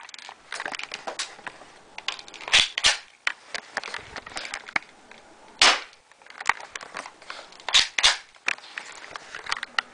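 Spring-powered airsoft pistol being fired, with its mainspring stretched for more power: about five loud, sharp snaps, some in quick pairs, with smaller clicks and knocks between the shots.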